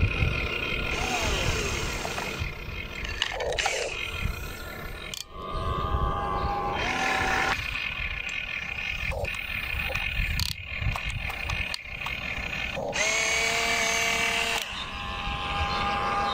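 Whine of a radio-controlled excavator's electric motors and gearboxes as it digs and swings, starting, stopping and changing pitch every few seconds, over a steady low rumble.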